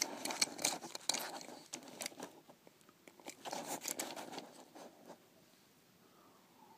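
Matchbox Mercedes-Benz G63 AMG 6x6 die-cast toy truck pushed by hand along a backdrop: its six small wheels rolling with light clicking and crinkling, in two stretches that stop about five seconds in.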